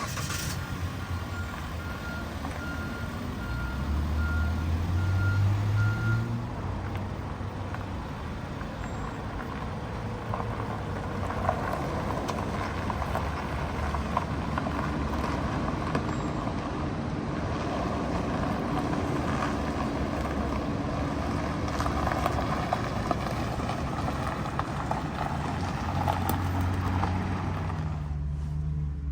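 Inside a Mitsubishi Outlander's cabin: a row of short, evenly spaced electronic beeps sounds for the first several seconds. The engine note rises as the car accelerates, then settles into steady engine and road noise.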